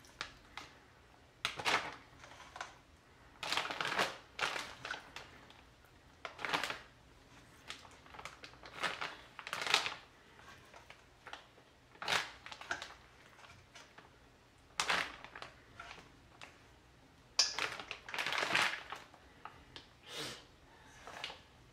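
Marinated chicken drumsticks handled by a gloved hand and dropped into a zip-top plastic bag: wet squelches and rustles of the bag's plastic, coming in short irregular bursts every second or two.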